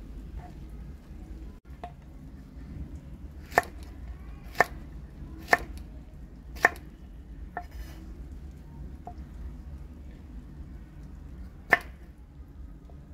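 Knife chopping on a cutting board: five sharp strokes about a second apart, the last of them lighter, then a pause and one more stroke near the end.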